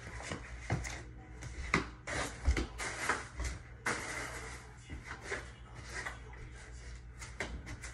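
Footsteps across a small room and objects being moved about: scattered knocks, clicks and rustles, busiest about two to three and a half seconds in.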